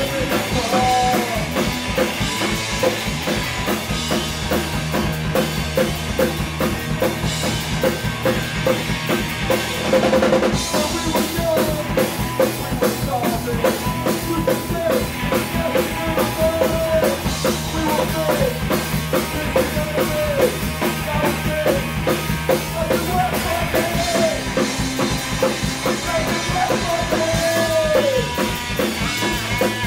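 Live punk rock band playing a fast, loud song: a pounding drum kit driving it with electric guitars over the top, and a louder crash about ten seconds in.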